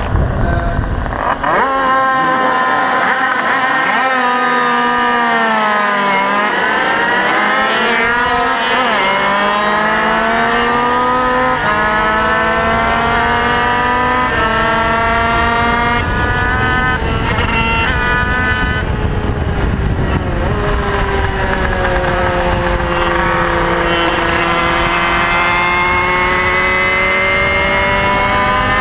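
Onboard sound of a small Sachs-class racing motorcycle's engine pulling away from the start and accelerating hard, its pitch climbing in each gear and dropping back at each upshift, several times over.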